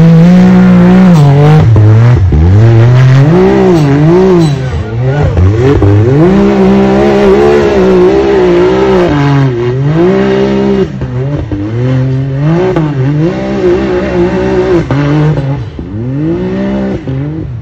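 Stock-class UTV race engine revving hard and unevenly under load as it claws up a steep dirt hill climb. The pitch surges and drops again and again as the throttle is worked, growing fainter near the end as the machine gets farther up the hill.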